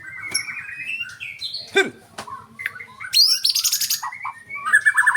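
White-rumped shama (murai batu) singing a varied song in full voice: whistled phrases, a call that drops steeply in pitch about two seconds in, and a fast rattling trill just after three seconds. This is the kind of vigorous song used as a lure recording to get a silent shama singing.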